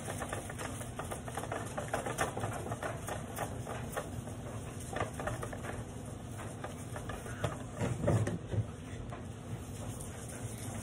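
3000-grit sandpaper on a hand sanding pad rubbed back and forth over a plastic headlight lens: a run of quick, scratchy strokes. This is the first sanding stage of a headlight restoration, cutting away the foggy surface of the lens.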